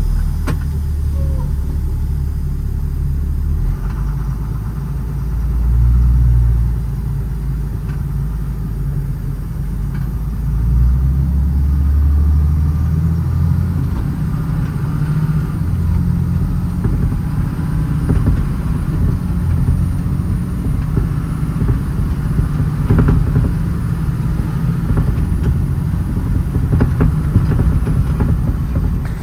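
Ford F-750's 5.9 Cummins ISB diesel running under way, heard from inside the cab with road and drivetrain noise. The low rumble swells and changes pitch a few times in the first half, loudest about six seconds in, then runs on more evenly.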